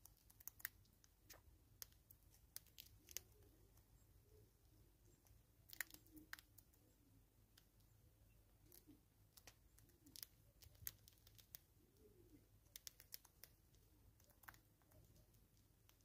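Faint, irregular crisp clicks and crunches of animals feeding at a seed feeder: a bush squirrel nibbling seeds and a hornbill pecking.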